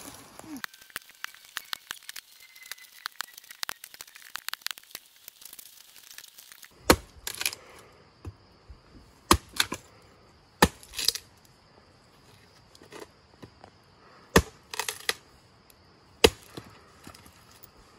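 Light crackling and snapping of twigs and small branches for the first several seconds. Then a hatchet chops a felled sapling pole laid across a log: about a dozen sharp strikes at irregular intervals, some in quick pairs.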